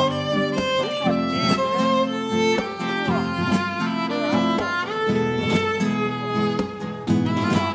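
Background music: a fiddle melody over strummed guitar with a steady beat.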